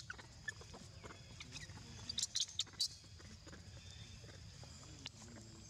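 Macaques squeaking: a quick run of four short, high squeaks about two seconds in.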